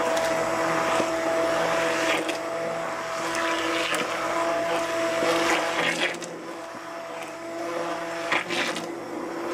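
Stainless steel immersion (stick) blender running in a pot of thick puréed squash sauce, mixing in heavy cream: a steady motor whine over the churning of the sauce, a little quieter from about six seconds in.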